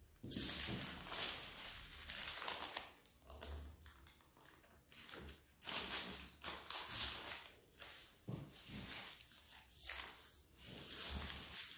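Baking paper rustling and crinkling in uneven surges as hands roll a filled puff-pastry log up in it and press it along its length.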